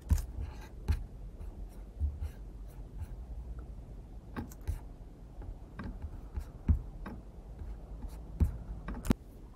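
Irregular clicks and taps from working a computer, a sharp click every second or so over low handling noise.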